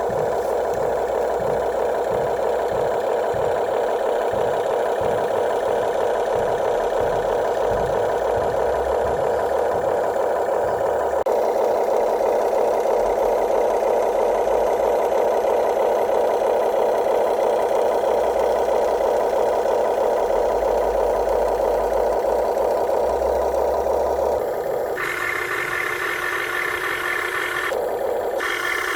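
Electric motors and gearboxes of a Huina 1580 RC excavator whirring steadily as it works, the tone shifting about eleven seconds in and changing to a higher, thinner whine near the end as different functions are driven.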